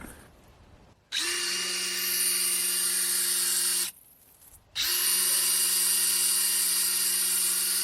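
Electric drill spinning a Wolfcraft drill pump, run in two bursts of about three seconds each with a short pause between, each a steady motor hum with a high hiss.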